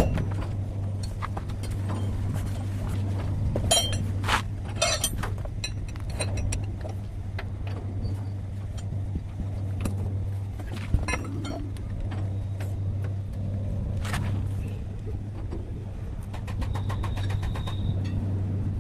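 Steady low mechanical hum with scattered sharp metallic clicks and clinks, like tools and metal parts being handled during leaf spring work.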